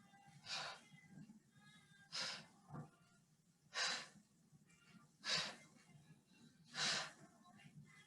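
A woman's short, forceful breathy exhales, five of them at an even pace about a second and a half apart, with one softer breath between. This is effort breathing, exhaling on each repetition of an oblique-reach ab exercise.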